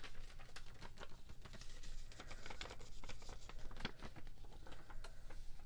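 Close-miked crinkling and rustling of packaging being handled, with many small irregular clicks and taps.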